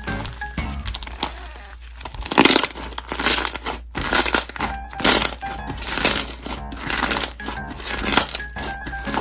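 Slime being squeezed and worked by hand, giving repeated noisy squishes about once a second, over light background music.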